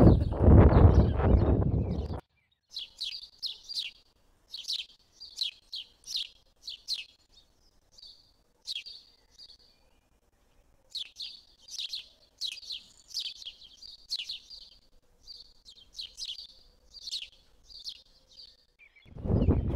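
A gust of wind rumbling on the microphone for the first two seconds, then a small bird chirping in quick runs of short high notes, pausing between runs, until near the end.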